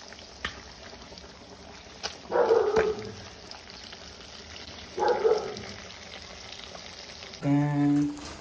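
A dog barking twice over the steady bubbling of a pot of gravy boiling on the stove, with a short steady pitched tone near the end.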